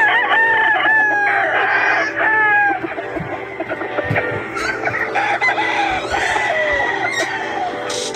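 Several gamefowl roosters crowing, their calls overlapping one another, with clucking mixed in.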